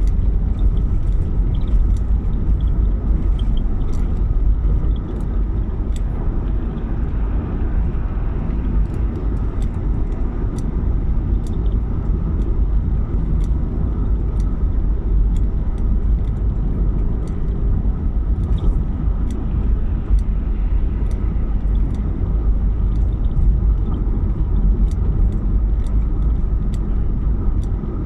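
A car on the move: a steady low rumble with light clicks scattered through it.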